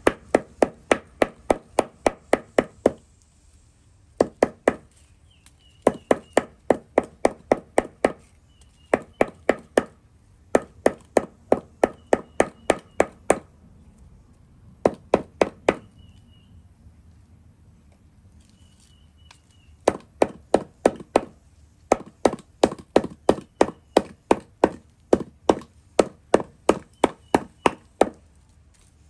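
Claw hammer pounding a piece of sun-dried stingray on a wooden block: quick, even blows about four a second in runs of a few seconds, with short pauses between runs. The pounding softens the dried fish for eating.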